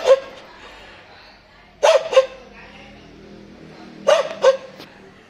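Dog barking hoarsely in pairs: three double barks about two seconds apart.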